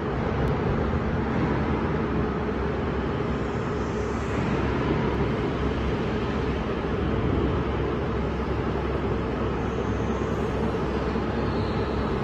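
Steady machine hum with a constant rushing noise, unchanging throughout.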